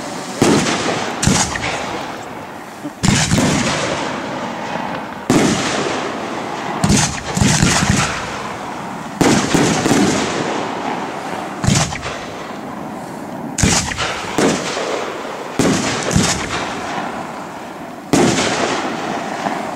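Aerial firework shells bursting one after another, a loud bang every second or two, each trailing off before the next.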